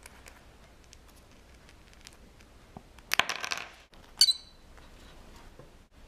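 A masked lovebird nibbling a crunchy snack held in the fingers: light scattered clicks of beak on food, a quick burst of crisp crunching about three seconds in, then one short, sharp, high chirp a second later.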